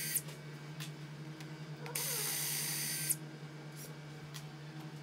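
Battery-powered surgical drill-driver running in short bursts as it backs the fixation pins out of the cutting block on a plastic sawbone tibia: one burst stops just at the start, another runs for about a second from about two seconds in, with a few light clicks between.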